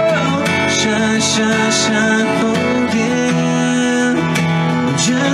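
Country song played live: an acoustic guitar strummed in a steady rhythm, with a man singing over it.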